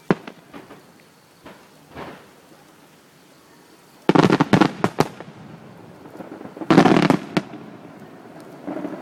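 Aerial fireworks going off. A sharp bang comes at the start, followed by a few smaller pops. About four seconds in, a loud cluster of rapid crackling bangs goes off, and a second one follows about seven seconds in.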